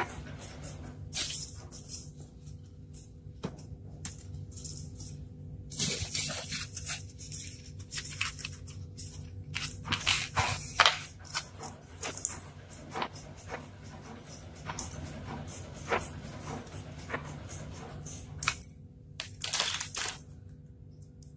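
Hands handling and rubbing pieces of styrofoam on a tabletop: irregular scraping and crackling rustles with small clicks and knocks, over a steady low hum.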